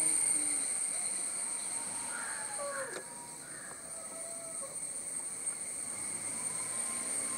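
Kitten growling and yowling in a standoff: a few drawn-out cries that bend down in pitch about two to three seconds in, over a steady high-pitched background hum.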